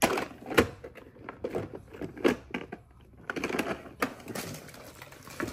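Toys clattering and knocking together as they are gathered up and put away: a string of irregular knocks and clicks, the sharpest about half a second in and about four seconds in.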